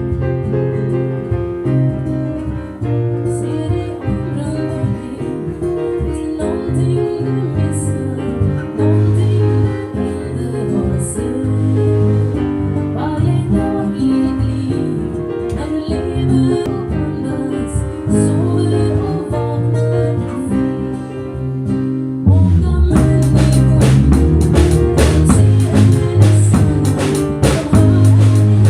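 A song led by guitar, with a voice singing; at about 22 seconds in, a drum kit comes in and the music gets louder.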